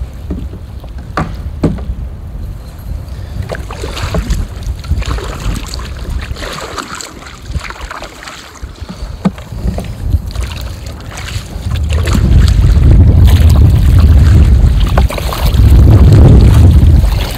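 Kayak paddle strokes splashing and dripping in choppy water, with wind buffeting the microphone. From about twelve seconds in, the wind swells into a heavy low rumble that drowns out the rest.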